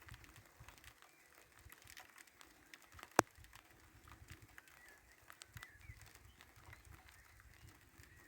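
Faint outdoor ambience of birds chirping now and then, with low wind rumble on the microphone and scattered small clicks; one sharp click about three seconds in is the loudest sound.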